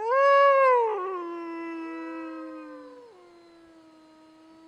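Wolves howling: a loud howl sweeps sharply up in pitch, holds, then drops to a lower, held note. A second howl joins at a higher pitch for about a second, and from about three seconds in a quieter, long, steady howl carries on.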